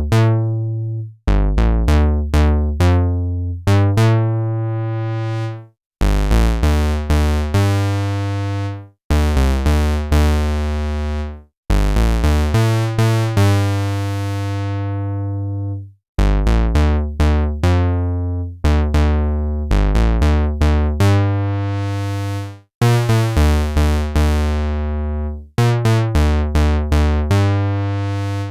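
Behringer CRAVE analog synthesizer playing dry, with no effects: its single oscillator through the ladder filter plays a repeating pattern of short low notes. The phrases last a few seconds and are split by short stops. The filter sweeps open and shut, so the tone goes from dull to bright and buzzy and back.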